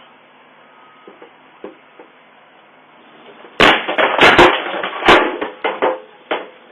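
A quick series of loud bangs and clattering knocks, starting about three and a half seconds in and tapering off over about three seconds, after a stretch of faint hiss with a few light ticks.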